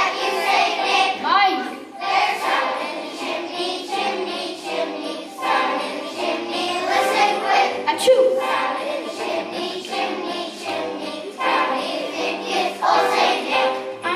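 Children singing, with a boy's solo voice carried through a microphone and PA over the group. A single sharp click sounds a little past halfway.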